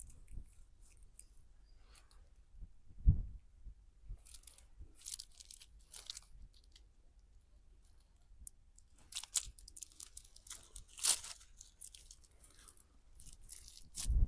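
Close-up crunching, crackling and tearing noises in irregular bursts, with a single dull thump about three seconds in.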